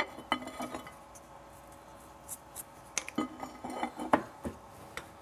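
Scattered metallic clinks and knocks as a stainless Damascus steel bar is flipped over and set back in a metal vise.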